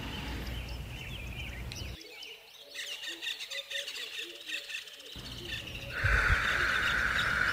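Forest ambience with many birds chirping and calling. About six seconds in, a louder steady hiss-like drone comes in.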